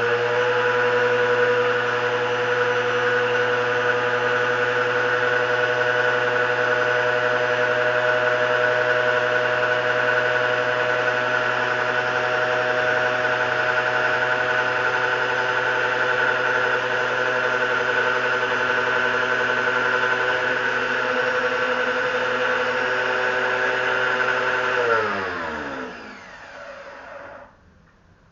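Lotus pressure washer's motor and pump running with a loud, steady hum and hiss. About 25 s in it is switched off and winds down, its pitch falling until it stops.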